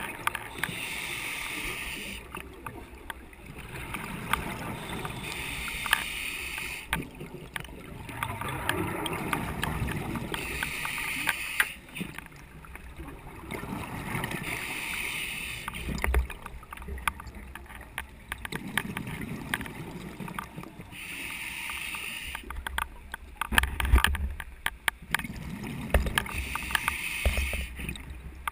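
Scuba diver breathing through a regulator underwater: a hiss on each breath in, then bubbling on the breath out, about every five seconds. Clicks and knocks from the rattling camera come through it and cluster about two-thirds of the way in.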